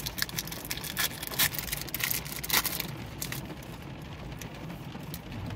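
A foil Pokémon booster pack wrapper is crinkled and torn open: a run of sharp crackles and rustles for about three seconds, then fainter handling.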